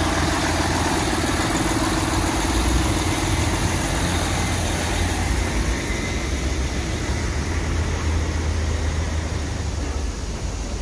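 Mercedes-Benz dump truck's diesel engine idling close by with a steady rumble, fading about halfway through.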